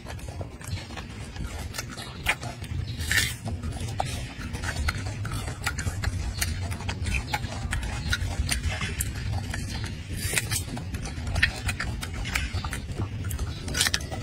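Golden snub-nosed monkey chewing crisp green fruit: irregular wet crunching clicks with a few sharper bites, over a steady low rumble.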